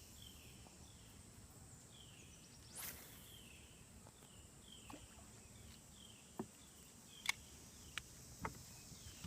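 Faint outdoor ambience: a steady high insect drone with a short chirping call repeating about twice a second. A brief swish comes about three seconds in, and a few sharp clicks come in the last few seconds.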